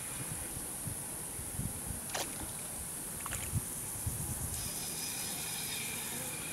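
Steady high insect chirring, with low wind buffeting on the microphone and a few soft knocks in the first half.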